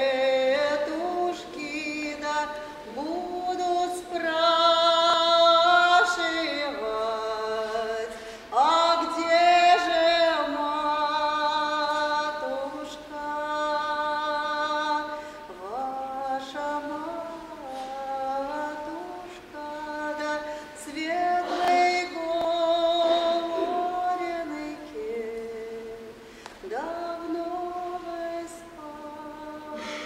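A woman singing a slow, sad Russian folk ballad about a young Cossack solo and unaccompanied, holding long drawn-out notes with glides between them.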